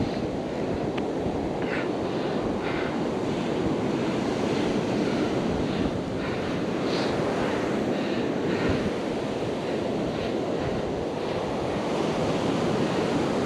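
Ocean surf washing steadily on the beach, with wind buffeting the microphone. A few faint short clicks sound over it.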